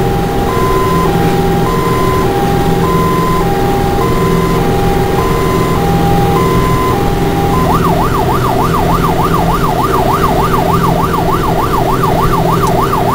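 Fire engine's electronic siren heard from inside the cab: a two-tone hi-lo pattern, switching about halfway through to a fast wail that rises and falls about three times a second, over engine and road noise.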